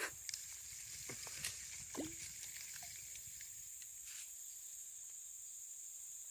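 Steady high-pitched hiss of an insect chorus, with a few faint clicks.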